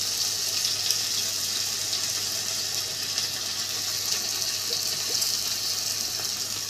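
Raw white rice sizzling in a hot pot as it is stirred and toasted with a plastic spoon: a steady hiss, with faint scrapes of the spoon.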